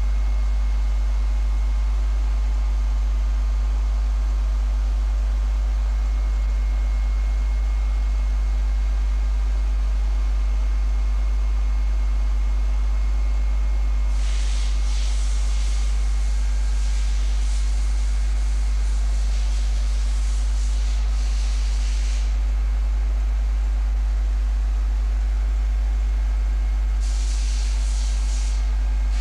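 Favretto MC 2T 400 CNC grinding machine running with a steady low hum. About halfway through, a sharp hiss starts and comes and goes for several seconds, then returns briefly near the end.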